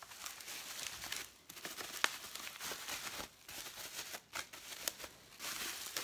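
Bubble wrap and plastic packaging rustling and crinkling as a wrapped part is handled and lifted out of the box, in uneven spells with a few sharp crackles.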